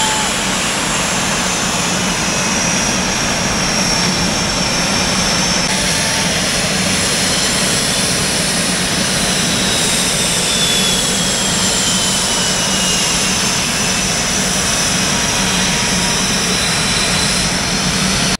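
Jet engines of T-50B aerobatic jets, loud and steady, with several high whines sliding slowly down in pitch.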